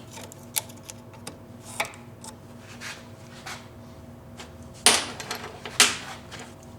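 Light scattered clicks of small metal parts being handled, then two sharp knocks about a second apart near the end, each ringing briefly, over a faint steady hum.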